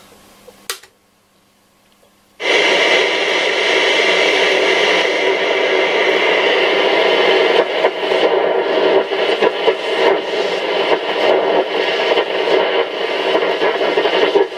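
Roberts R727 transistor radio on shortwave: a click about a second in, then after a short silence loud band noise from its speaker comes on suddenly and runs on steadily, with crackles as the dial is tuned.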